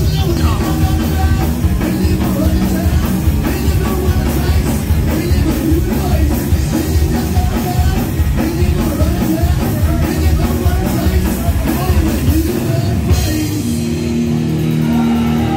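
Loud heavy rock music with drum kit and singing; near the end the drums drop out, leaving held notes.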